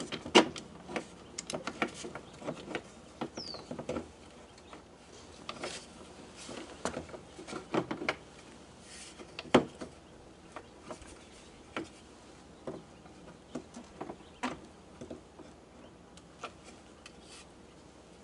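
Irregular clicks, knocks and scrapes as a Chevy Silverado's exterior door handle is worked loose and pulled out of the door, with a brief high squeak a few seconds in.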